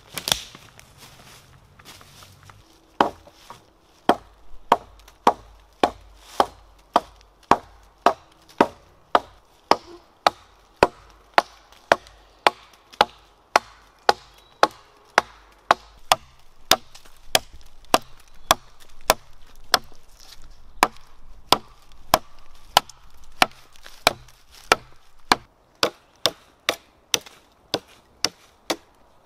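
Hatchet chopping into a fallen dead branch. Sharp, evenly paced blows, about two a second, start about three seconds in and keep on steadily.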